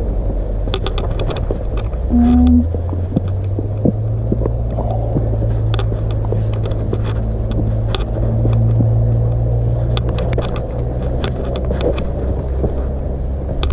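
A steady low drone throughout, with scattered clicks and scuffs typical of footsteps on rock and mud.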